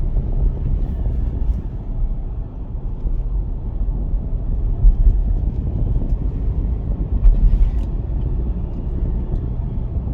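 Car driving slowly, a steady low engine and road rumble, with a couple of brief louder jolts about five and seven seconds in.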